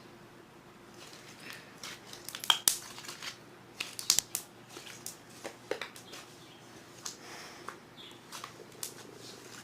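Homemade slime being squeezed and stretched by hand, giving irregular sharp clicks and crackling pops, the loudest a few in a cluster a little past two seconds in and around four seconds in.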